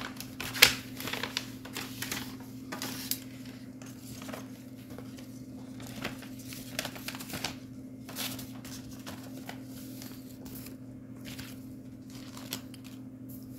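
A paper envelope being opened and a sheet of paper unfolded and handled, in irregular rustles and crinkles with a sharper crackle about half a second in. A steady low hum runs underneath.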